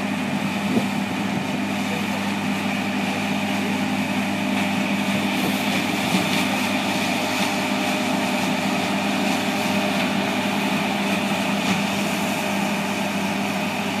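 John Deere S680 combine harvester running steadily while harvesting rice: an even machine drone with a constant higher whine above it.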